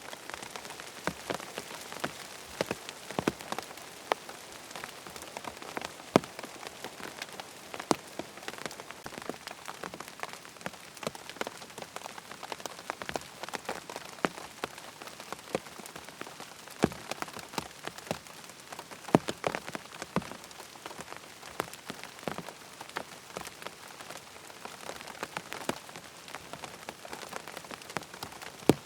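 Rain pattering on a tent's fabric: a steady hiss of rainfall with many individual heavier drops tapping sharply on the canvas at irregular moments.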